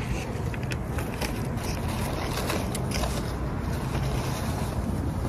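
Crumpled brown paper takeout bag rustling and crinkling as it is handled, in a run of crackles over the first three seconds or so, over a steady low rumble.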